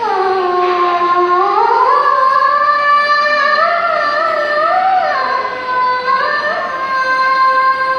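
A young girl singing solo without accompaniment: one long drawn-out phrase that slides slowly up and down in pitch.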